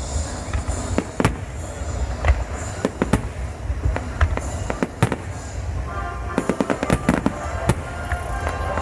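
Aerial fireworks bursting: sharp bangs roughly once a second over a low rumble, then from about six seconds in a dense flurry of rapid crackling.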